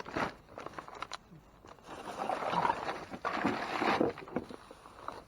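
Rummaging through discarded bags and packages: a few sharp knocks, then a dense crinkling rustle of plastic for about two seconds in the middle.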